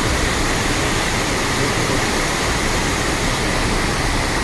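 Heavy rain falling, a dense steady hiss.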